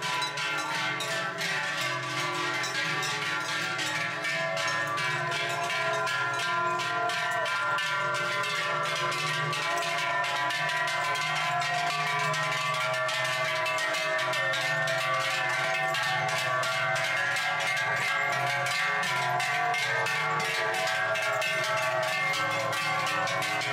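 Large cowbells on a passing herd of cows clanging continuously: many steady ringing tones over a dense, rapid clatter, growing a little louder about five seconds in.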